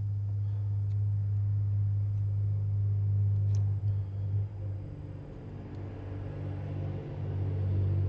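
A steady low electrical hum that drops away about halfway through and returns near the end, with a few faint ticks.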